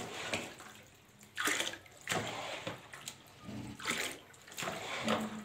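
Water splashing and pouring as a plastic mug is dipped into a tub of water and emptied into a full plastic bucket: about four separate splashes.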